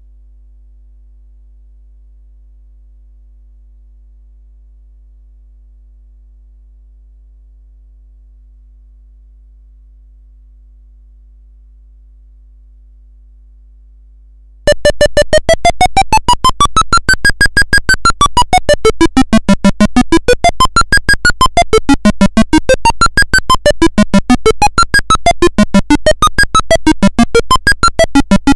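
A faint low hum, then about halfway through computer-generated electronic music starts suddenly: a fast, even stream of short synthesized notes whose pitch sweeps up and down in wandering curves.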